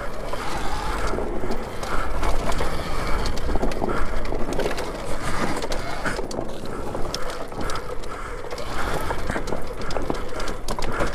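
Alta Redshift MXR electric dirt bike ridden over a rocky trail: the bike's tyres, chain and chassis rattle and clatter over the rocks, with many sharp clicks and knocks.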